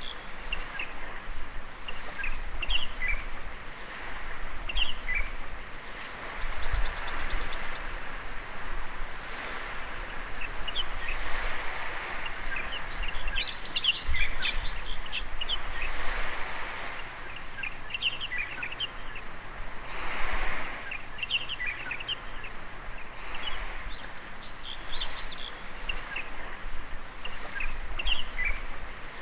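Small waves washing onto a sandy beach, a soft hiss that swells and fades every few seconds, with birds chirping short high notes throughout and a quick trill about seven seconds in.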